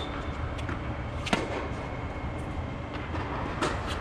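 Tennis balls struck by rackets and bouncing on the hard court, sharp pops about a second in and again near the end with fainter ones between, over the steady low rumble of the air dome's inflation blowers.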